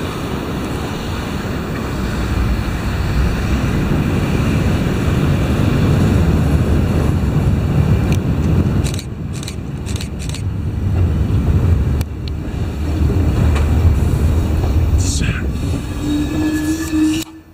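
R62A subway train arriving on elevated track: the rumble of wheels on rail grows louder as it approaches, with a run of sharp clacks about nine seconds in. Near the end a high whine falls in pitch and a short low squeal follows as it slows.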